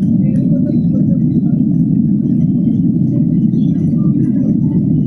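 Steady low rumble of airliner cabin noise, the engines and airflow heard from inside the passenger cabin.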